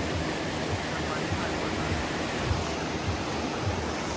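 Steady wash of small waves breaking on a sandy beach.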